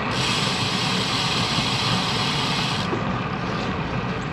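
Wind and road noise on a bicycle-mounted action camera while riding a road bike, with a brighter hiss for the first three seconds that cuts off sharply.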